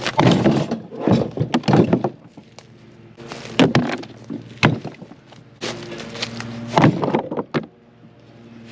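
Stones clacking and knocking against each other in several sharp clusters as they are handled and set, over the steady hum of a lawn mower engine.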